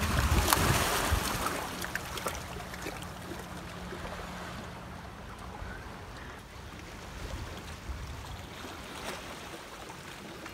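Sea water washing among shoreline rocks, with wind buffeting the phone microphone; louder for the first two seconds, then a steady, lower wash.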